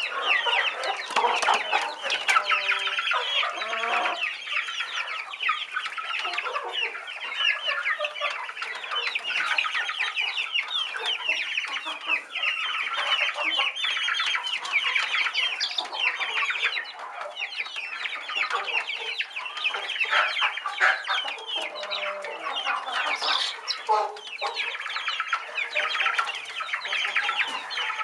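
A flock of young chickens calling continuously: many short, high peeps and chirps overlapping into a steady chatter.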